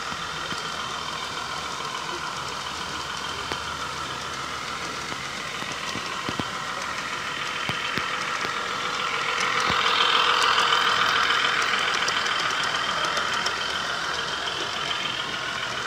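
Self-built G-scale model of the Zittau railcar VT 137 with its trailer coaches running on garden-railway track. Its electric drive gives a steady whine, and its wheels click now and then on the rails. The whine grows louder as the train comes close about ten seconds in, then eases off.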